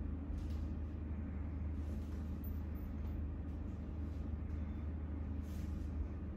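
Steady low room hum, with a few faint soft rustles as hands press and knead the legs through a blanket.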